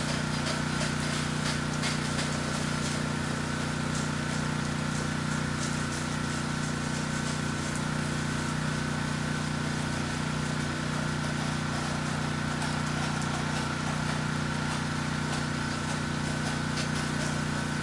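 Gas-engine pressure washer running steadily, a constant engine hum with an even hiss over it.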